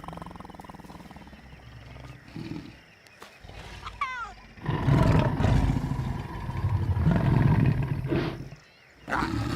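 Lion growling. A long, loud growl starts about halfway through and lasts over three seconds, and a second short growl comes near the end.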